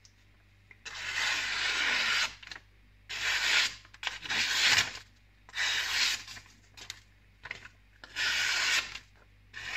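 A freshly stropped kitchen knife slicing through a hand-held sheet of printed paper in five separate strokes, each a hissing, rasping cut of about a second, the first one longer. The clean cutting shows a sharp edge.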